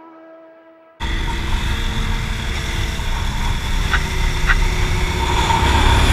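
Intro music fading out, then from about a second in the onboard sound of a motorcycle riding on track: loud wind rumble on the camera microphone with the engine running beneath it. Two short clicks come about halfway through.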